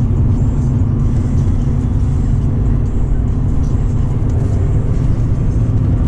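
Car running at road speed, heard from inside the cabin: a steady low engine and tyre rumble with a constant hum.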